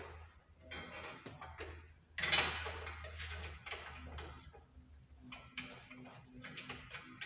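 Hand tools clicking and knocking on the metal underside of a car raised on a lift, with a louder rushing, scraping sound about two seconds in and a steady low hum underneath.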